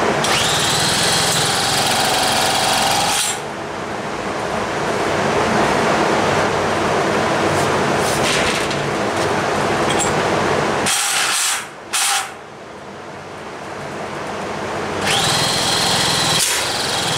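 A power drill spinning the single-cylinder two-stroke engine of a Motobecane moped through its CDI flywheel to turn it over for starting. The drill motor whines up in pitch at the start and again near the end, with a brief drop-out about eleven seconds in.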